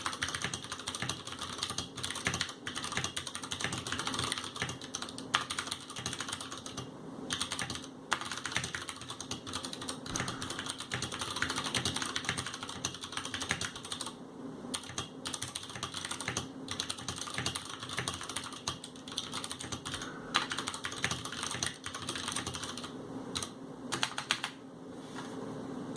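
Fast continuous typing on a Ducky Mini mechanical keyboard with Cherry MX Brown switches: a rapid run of keystroke clacks, with a few short pauses.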